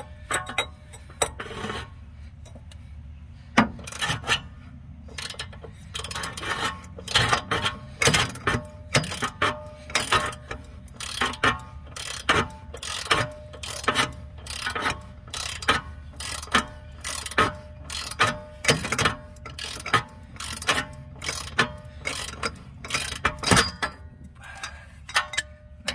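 3/8-inch drive ratchet wrench, extended with a cheater pipe, clicking as it is worked back and forth on the nut of a homemade all-thread bushing press, slowly pressing a suspension bushing. The clicks are scattered at first, then come in a steady, repeated run with a slight metallic ring.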